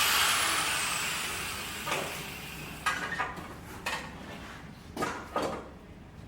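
A loud rushing hiss that fades away over the first two seconds, then five sharp knocks spaced about a second apart, the last two close together.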